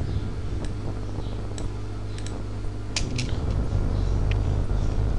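Steady low hum of a computer recording setup, with a few faint mouse clicks scattered through it.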